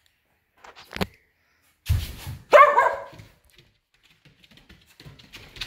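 A double merle Koolie puppy barks once, a short loud bark about two and a half seconds in. A short knock comes about a second in, and a dull thump just before the bark.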